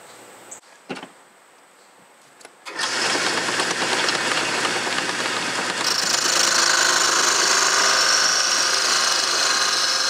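Wood lathe starting up about three seconds in and then running steadily with the wood blank spinning. From about halfway through, a turning tool bites into the spinning blank, adding a higher scraping noise as it cuts a groove.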